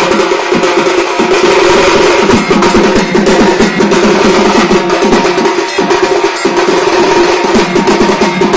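A Bengali band's drums, a barrel-shaped dhol, a snare drum and a small stick-beaten drum, playing together in a fast, dense rhythm of the 'kurkuri bajna' kind, with steady ringing tones under the rapid strokes.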